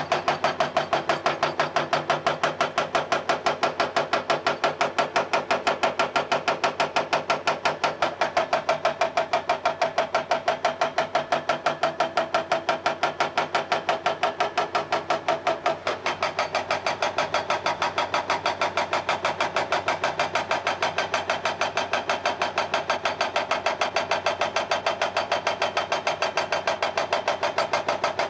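Excavator-mounted hydraulic rock breaker hammering its chisel into rock in rapid, even blows, several a second, over the excavator's diesel engine.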